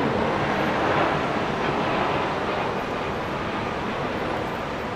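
Twin-engine jet airliner passing low overhead with its landing gear down on approach: a steady, broad rumble of jet-engine noise that slowly fades.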